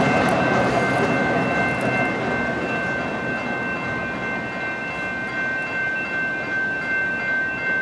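Canadian Pacific intermodal freight train rolling past and moving away, its rumble slowly fading, with steady high-pitched tones held over it.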